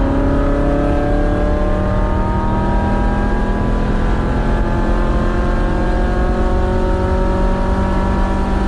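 Air-cooled 2054cc stroker VW flat-four on twin Weber IDF 44 carburettors accelerating hard through one gear, heard from inside the Beetle's cabin. The engine note rises steadily as the revs climb.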